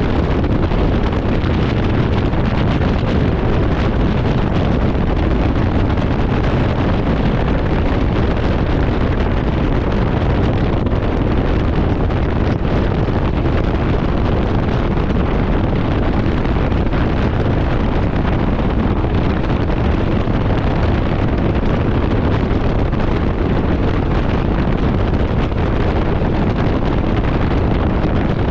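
Steady wind rush buffeting the microphone of a Can-Am Ryker 900 three-wheeled motorcycle riding at speed, with vehicle and road noise underneath.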